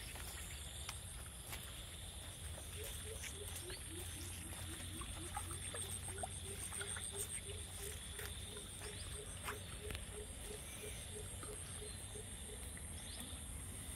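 Faint outdoor animal chorus: insects trill steadily and high, and from about three seconds in a low, short call repeats evenly about three times a second until near the end.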